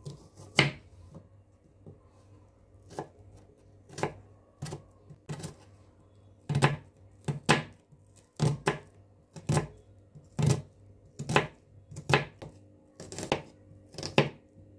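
Steel kitchen knife slicing small onions on a wooden chopping board: separate sharp knocks of the blade on the board, about twenty at an uneven pace, sometimes in quick pairs. A faint steady hum lies underneath.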